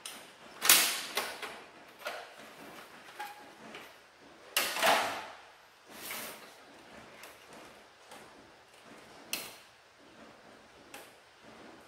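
Plastic clacks, clicks and scrapes of a Canon LBP2900 laser printer's casing being taken apart by hand as covers are unclipped and lifted off. The loudest clack comes about half a second in, a longer scraping clatter near five seconds, and a sharp click near nine seconds.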